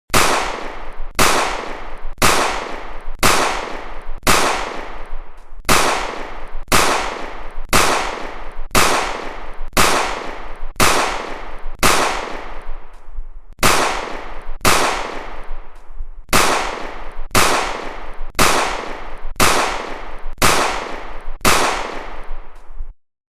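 Pistol-shot sound effect repeating about once a second, each shot a sharp crack with a long echoing decay. It stops abruptly near the end.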